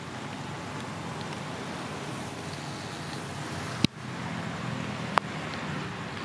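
Steady outdoor background rumble and hiss, broken by two sharp clicks about a second and a half apart, the first a little under four seconds in.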